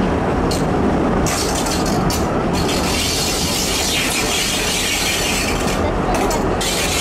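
Steady running noise of a diesel railcar moving slowly along yard tracks, heard from inside its driver's cab.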